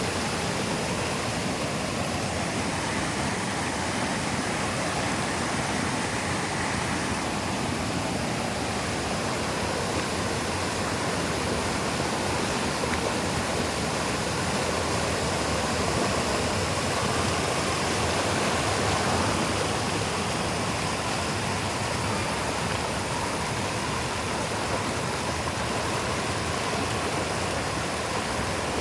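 Tat Ton waterfall: water pouring and rushing over rock in a steady, unbroken roar.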